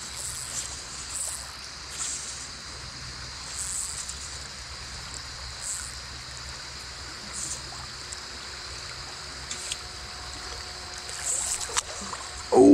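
Steady rushing of a wide creek's current, with a steady high insect drone behind it.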